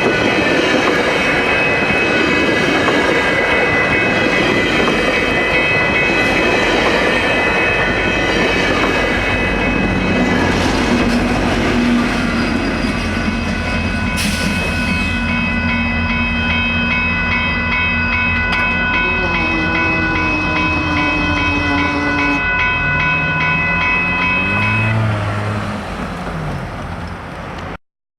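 A GO Transit commuter train passing close by, a loud, steady rail noise that fades in the last few seconds and then cuts off abruptly.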